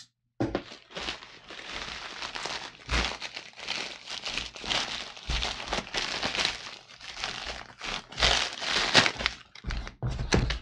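A padded plastic mailer envelope crinkling and rustling in the hands as it is slit open and a box is pulled out of it, with a few dull thumps in between.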